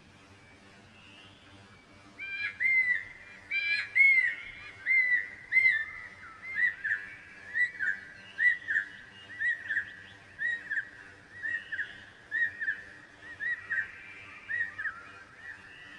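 A songbird singing a long run of short, clear whistled notes, about two a second. It begins about two seconds in and is loudest near the start.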